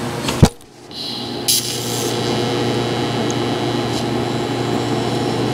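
TIG welding arc on steel, a steady buzzing hiss with a faint hum that starts about a second in as a plain steel nut is welded onto a steel plate. A single sharp knock comes just before the arc starts.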